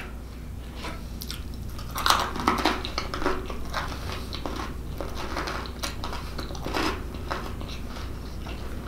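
A person chewing a mouthful of soft cheese bread close to the microphone, with irregular wet mouth clicks and smacks. The chewing is loudest about two seconds in. A low steady hum sits underneath.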